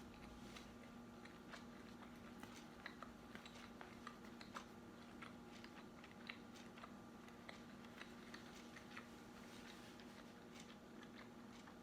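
Faint chewing and small wet mouth clicks of a person eating, scattered irregularly over a low steady hum.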